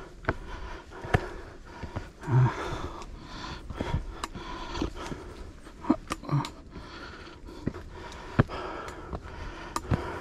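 A hiker breathing hard while climbing stone steps, with irregular footsteps and scuffs on the stone.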